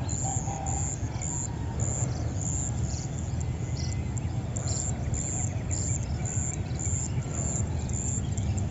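Rice-field morning ambience: a short, high chirp repeating about twice a second, with fainter bird calls, over a steady low rumble.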